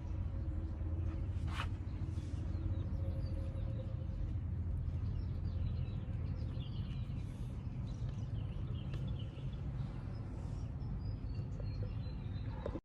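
Background ambience: a steady low hum under faint, scattered high chirps, with a single sharp click about one and a half seconds in.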